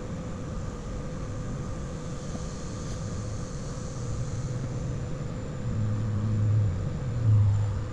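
Steady low background rumble with a faint steady hum, swelling louder twice near the end.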